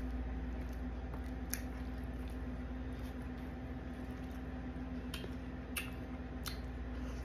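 Eating sounds: a plastic fork clicking and scraping in a foam takeout box, with chewing. There are four sharp clicks, over a steady low hum.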